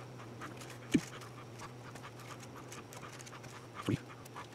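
Faint rustling and ticking of thin enamelled magnet wire being pulled through a small toroid core during hand winding, over a steady low hum. Two short, louder low sounds come about a second in and again near the end.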